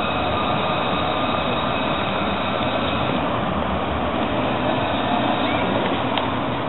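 Alstom Citadis tram running past along a curved underpass ramp: a steady rolling rumble with a faint whine that fades about halfway through. A short click near the end.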